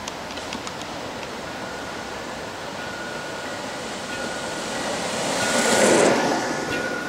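Longboard wheels rolling on coarse asphalt, approaching a ground-level microphone and passing close by in a rising rush that is loudest about six seconds in, then fading.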